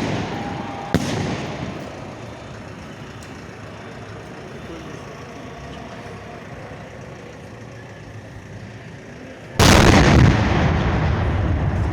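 Fireworks fired close by: one sharp bang about a second in, then a lower rumble for several seconds, then a sudden, very loud salvo of launch booms near the end that rings out for a couple of seconds.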